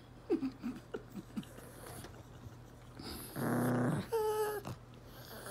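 Small dog whining in several short, falling whimpers, then growling briefly about three seconds in, followed by one more whine. It is fretting over a piece of pizza crust it is trying to hide.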